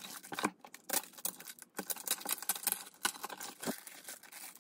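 Packaging crinkling and rustling as it is handled and opened, with irregular crackles and small clicks.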